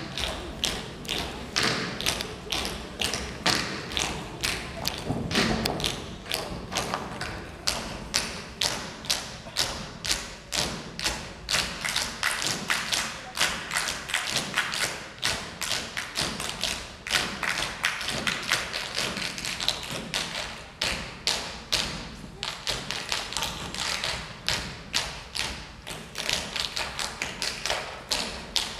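Percussive dance by a troupe of performers: a steady, fast rhythm of sharp taps and thumps, several a second.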